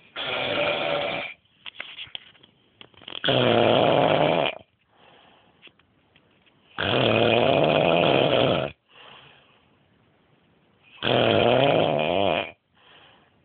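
A man snoring: four snores roughly every four seconds, each lasting one to two seconds, with quieter gaps between them.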